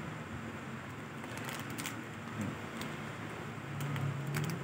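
Faint, scattered light clicks of a Shimano Nasci 3000 spinning reel being handled and cranked, turning smoothly, over a steady low hum.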